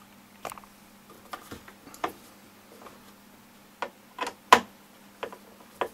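Hand screwdriver tightening screws into the plastic base of a Bose SoundDock Series II speaker: irregular small clicks and knocks of the screwdriver against the screws and housing, the loudest about four and a half seconds in.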